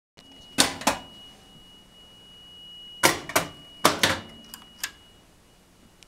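Stern Stars pinball machine in its test mode: a series of sharp mechanical clicks, mostly in pairs, about eight in all. Under them runs a faint steady high whine that fades out about five seconds in.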